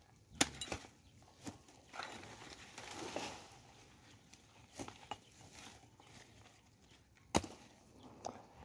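Irregular sharp knocks and chops as freshly dug cassava roots are cut and handled into a woven sack, with rustling of the sack between them; the loudest knock comes about seven seconds in.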